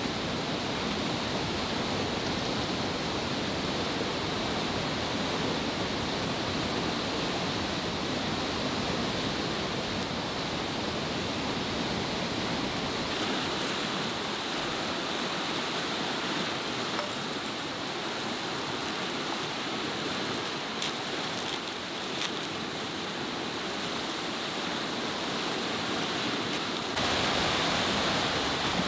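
Steady rush of a stream flowing over rocks, growing louder near the end. A few faint crackles from a small wood fire come through in the middle.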